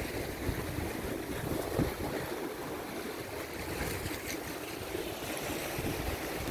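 Sea waves washing against a rocky shore, a steady wash of surf with wind rumbling on the microphone.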